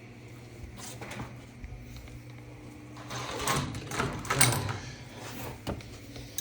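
Dryer parts being handled during an idler pulley removal: a few light clicks, then about two seconds of clattering and scraping about halfway through, over a steady low hum.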